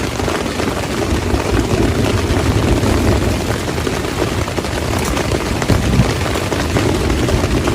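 Steady rain on a tent, a loud, even noise.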